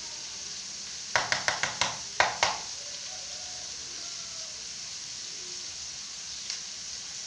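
Oil sizzling steadily in a pan as aromatics are sautéed, with a quick run of about seven sharp taps about a second in.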